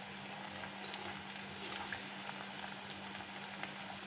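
Bread gulab jamun balls frying in hot desi ghee in an iron kadai, a steady sizzle and bubbling with faint crackles, just after the batch has gone into the ghee. A low steady hum runs underneath.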